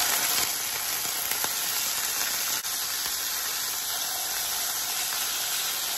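Raw salted quail pieces starting to fry in a hot pan, sizzling with a steady hiss.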